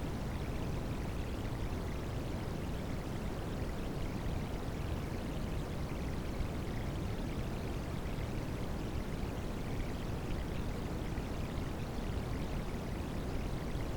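Rain sound layered with white noise: a steady, unbroken rushing hiss, heaviest in the low range, with no single drops or events standing out.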